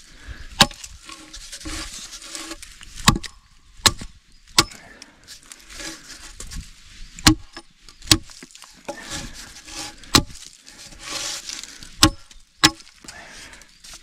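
Steel hatchet chopping into wood: about nine sharp chops, irregularly spaced, with short pauses between them.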